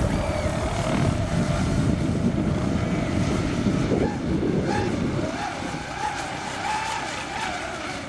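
Radio-controlled model racing catamarans running flat out across the water, their motors making a high whine that wavers in pitch as they turn. A low rumble under it eases off about five seconds in, and the sound fades as the boats pull away.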